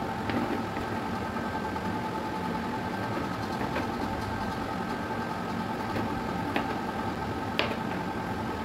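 Kitchen knife slicing cucumber on a plastic cutting board: a few sharp taps of the blade against the board, the clearest two near the end. Under it runs a steady mechanical hum.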